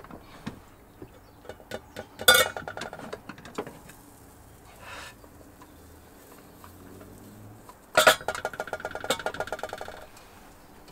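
Metal clatter from a RidgeMonkey sandwich toaster pan being handled: a loud ringing clank about two seconds in, and another about eight seconds in that runs into a quick rattle before dying away.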